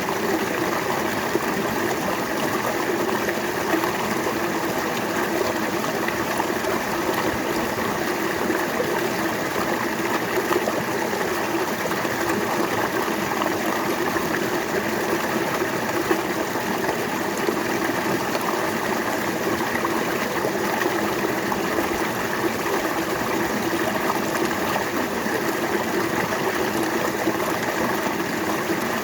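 River water flowing over stones, a steady rushing babble with no change in level.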